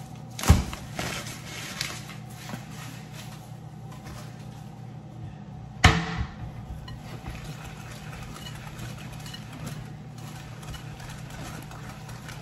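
Kitchen items being handled: two sharp knocks about five seconds apart, with faint clicks between them, over a steady low hum.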